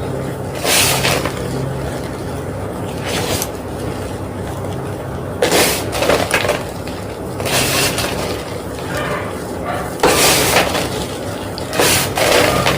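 A homemade gym chalk block being crunched and crumbling, in about six separate crunches a couple of seconds apart, over a steady low hum.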